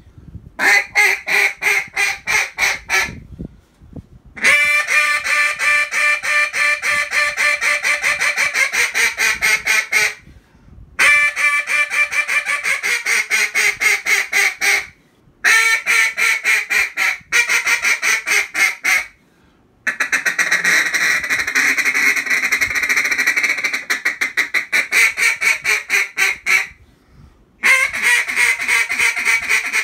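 Comeback Calls Hail Storm single-reed duck call blown loud in repeated strings of mallard quacks, about five notes a second, each string broken off by a short pause. In the second half one longer run of notes runs together.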